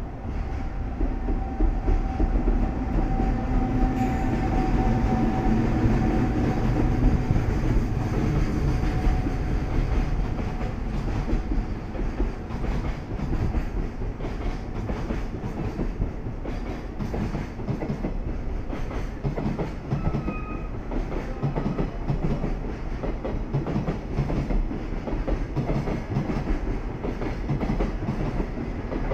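A freight train hauled by an EF210 electric locomotive passes close by at speed. A steady whine is heard as the locomotive goes past in the first ten seconds or so. Then the container wagons keep rolling through with a continuous rumble and clickety-clack of wheels over the rail joints.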